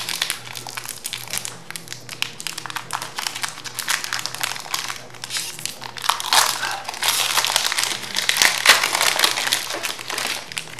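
Foil wrapper of a Pokémon TCG Evolving Skies booster pack crinkling as hands work it open, with louder bursts of crinkling about six seconds in and again near the end.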